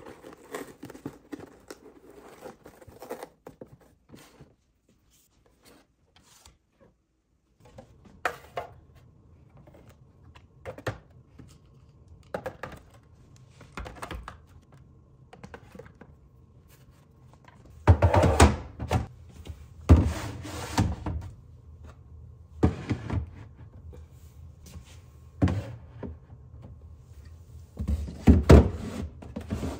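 Plastic bottles and clear plastic organiser bins being handled and set down, with scattered hollow knocks and thunks as they are placed in the cabinet under the sink. A low steady hum runs beneath.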